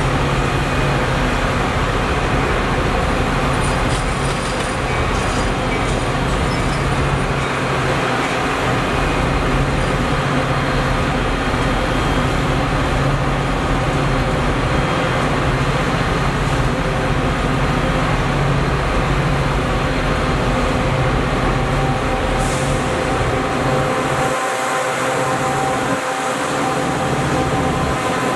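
Metra commuter train of stainless-steel bi-level gallery cars rolling past: a steady, loud rumble of wheels on rails with a low, even hum underneath.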